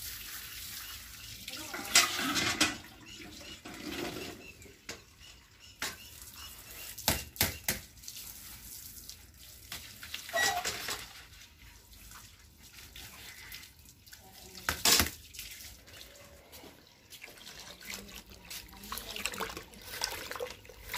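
Water running from a garden hose over jamun fruit in a plastic colander and a steel bucket. Several sharp knocks and clanks come through it, the loudest about two seconds in and again near fifteen seconds.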